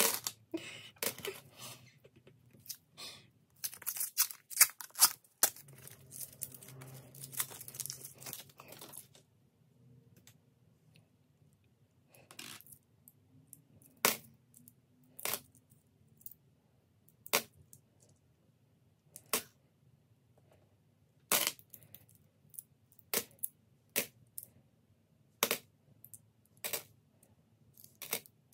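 Australian $1 coins clicking against each other as they are handled and set down one by one: a busy run of clinks and rustling for the first nine seconds or so, then single clicks every second or two.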